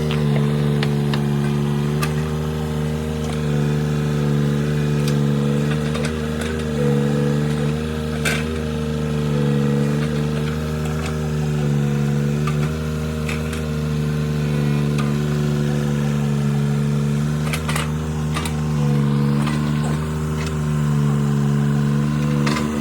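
Tata Hitachi Zaxis-33U mini excavator's diesel engine running steadily under working load, its pitch dipping slightly now and then, with a few sharp knocks.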